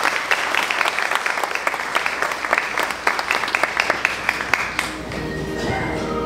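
Crowd of guests applauding, a dense run of handclaps. About five seconds in, the clapping gives way to soft music with held notes.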